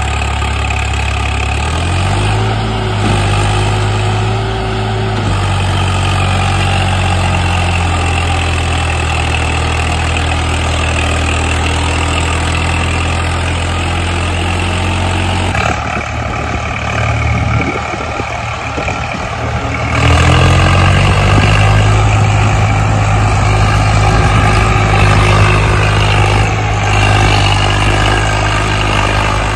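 Swaraj 855 FE 4WD tractor's three-cylinder diesel engine working hard, hauling a fully loaded trolley over soft ground. The engine revs up about two seconds in, runs rougher for a few seconds past the middle, then revs up again and runs louder toward the end.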